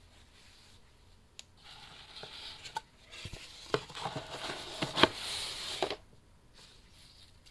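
Rustling of a cloth pouch and a gift box being handled with cotton-gloved hands, with several sharp clicks and taps, the loudest about five seconds in; the handling stops about six seconds in.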